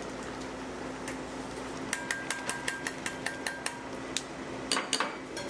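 A cook's metal utensil striking a hard cooking surface in a quick, even run of about ten strikes, some five a second, with a faint metallic ring, followed by a few louder scattered knocks near the end.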